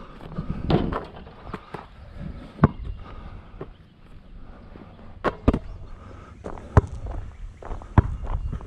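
Irregular sharp knocks and thumps heard from a camera mounted on a basketball as the ball is handled, shot at the hoop and comes back down to the ground. The loudest knocks come about two and a half seconds in and just after five seconds.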